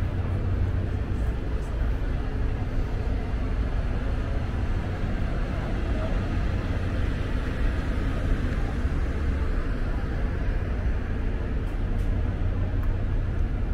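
Steady low rumble of train-platform ambience beside parked trains, with faint background voices.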